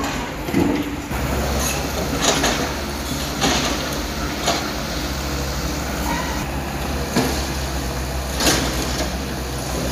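A JCB tracked excavator's diesel engine running steadily as it demolishes a concrete building frame, with irregular clanks, scrapes and crashes as its bucket breaks up and pulls down concrete slabs and columns.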